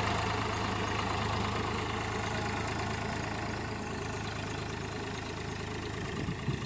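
Powertrac 434 tractor's three-cylinder diesel engine running steadily as it pulls a leveller across a field, slowly fading as the tractor moves away. A few short knocks come near the end.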